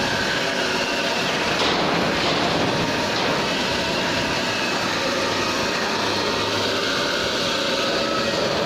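Angle grinder with a cutting disc running steadily through steel.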